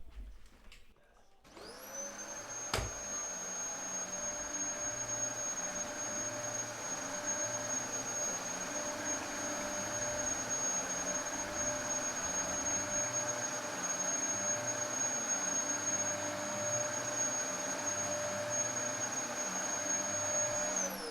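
Vacuum cleaner switched on, its motor whining up to speed, then running steadily with a high whine, and winding down with a falling pitch as it is switched off near the end. A single click comes just after it starts.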